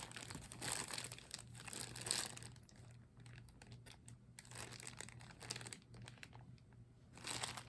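Small plastic jewelry bag crinkling and rustling as it is handled, in irregular spurts, over a low steady hum.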